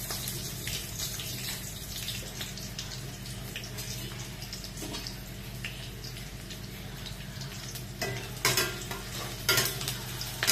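Sliced shallots and garlic sizzling in hot oil in a metal wok, a steady frying hiss. Near the end a metal spatula stirs them, scraping and clanking against the wok a few times.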